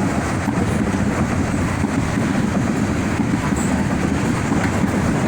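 A train rolling past at a level crossing: a steady rumble with clatter from the wheels on the rails, no horn.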